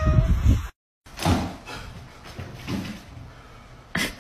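The end of a cat's meow falling in pitch, then a few knocks and rattles of a door, with a sharper bang near the end.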